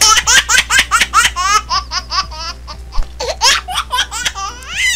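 High-pitched giggling laughter in quick repeated bursts, about five a second, with a short break about halfway through.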